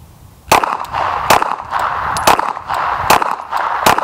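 Five shots from a 9mm Glock 19 pistol, fired about once a second starting half a second in, each followed by a ringing echo.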